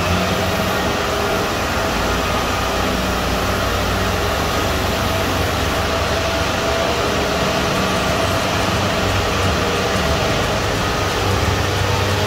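Kubota DC-70 combine harvester's diesel engine running steadily as the machine drives on its rubber tracks.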